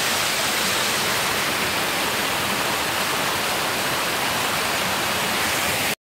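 Waterfall tumbling down a staircase of rock ledges: a steady rush of falling water that cuts off suddenly at the very end.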